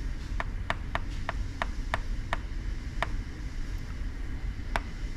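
A stylus tapping on a computer touchscreen: about nine short, sharp taps, most in a quick run over the first two and a half seconds, then two spaced-out ones, over a steady low background hum. The taps step the shift-angle buttons in crankshaft balancing software.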